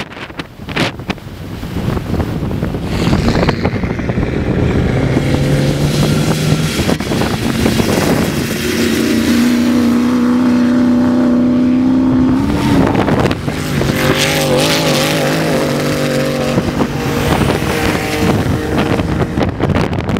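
Off-road 4x4 race vehicles' engines revving hard as they pass on the track, one engine note climbing and holding high midway, then another following. Strong wind buffets the microphone throughout.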